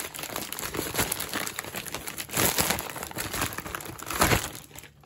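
Plastic poly mailer bag crinkling and rustling as it is handled by hand, with louder crackles about halfway through and again near the end.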